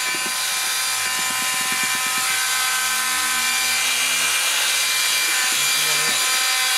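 Electric drill with a paddle mixer running steadily, churning lime putty mortar in a plastic bucket; a constant high motor whine with the rub of the paddle through the thick paste.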